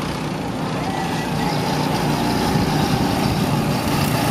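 Several go-kart engines running as the karts lap the track, a steady engine drone that grows slightly louder about a second and a half in.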